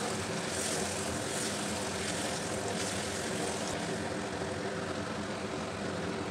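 Prawns in turmeric-tinted water and mustard oil simmering and sizzling in a cast-iron kadai over a low gas flame, stirred with a silicone spatula, over a steady low hum.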